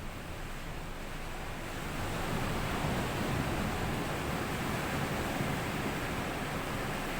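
Small sea waves washing up onto a sandy beach, a steady rush of surf that swells about two seconds in and stays full.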